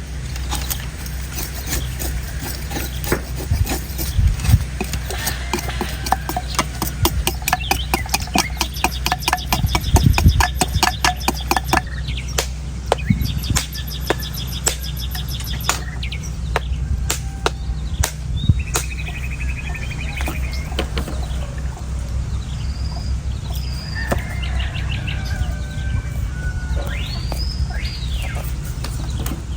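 Knife strokes on an old, dry, hard coconut husk: scattered sharp cuts, then a fast run of rapid strokes in the middle, thinning out toward the end while birds chirp in the background.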